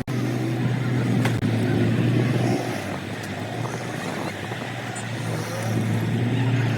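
An engine running steadily with a low hum, easing off for a few seconds in the middle, with a few light clicks and knocks.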